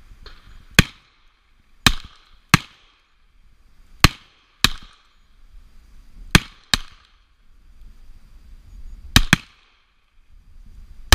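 Revolver shots: about ten sharp reports at uneven intervals, several in close pairs, each trailing off in a short echo.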